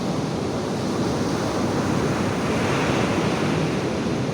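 Surf washing onto the beach, a steady rushing wash that swells a little midway, with wind on the microphone.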